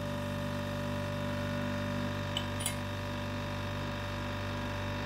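Bench grinder running with no load: a steady motor hum with no grinding noise. There are two light metallic clinks about two and a half seconds in.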